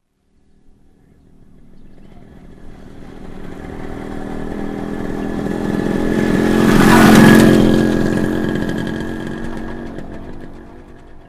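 A motorcycle passing by: its engine note grows steadily louder for several seconds, is loudest a little after the middle as it goes past, then fades away.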